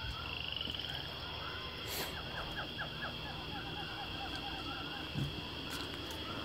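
Outdoor chorus of calling animals: a steady high drone under repeated chirping calls, with a run of quick notes, about six a second, starting about two seconds in. A brief knock lands at the start of that run.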